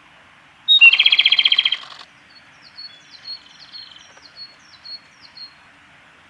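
Male Japanese robin singing: one or two high lead-in notes, then a loud, fast rattling trill lasting about a second. After it, fainter high notes falling in pitch repeat about eight times.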